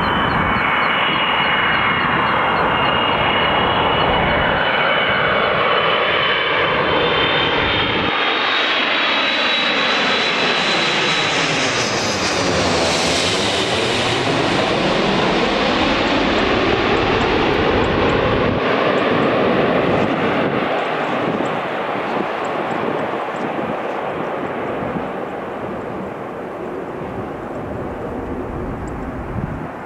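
Airbus A330-300 jet airliner on final approach, flying low directly overhead: high engine whine and rushing jet noise build up, peak as it passes overhead about halfway through, then fade gradually as it flies on toward the runway.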